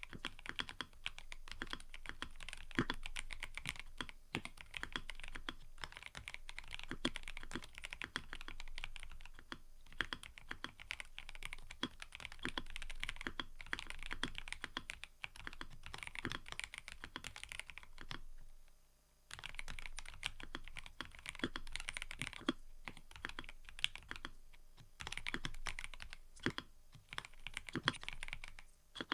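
Continuous typing on a mechanical keyboard: a dense, irregular run of keystroke clacks with a short pause about two-thirds of the way in.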